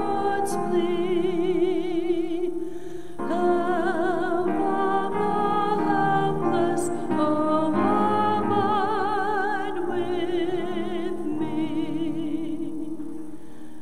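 A solo singer with a wide vibrato singing a slow hymn in long held phrases, over a sustained accompaniment.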